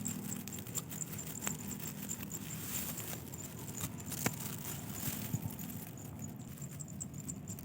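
Quiet rice-paddy ambience: a thin, high insect trill pulsing steadily, with scattered faint ticks and taps.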